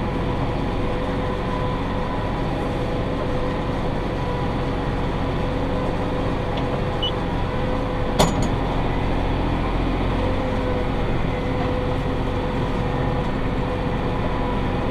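Massey Ferguson 5610 tractor running steadily under load, pulling a John Deere 468 round baler, with a steady whine over the engine drone. One sharp click a little over halfway through.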